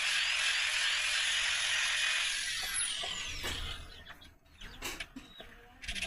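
A workshop power tool running with a dense hiss, then switched off about two seconds in, its high whine falling as it winds down. A few light clicks and knocks follow.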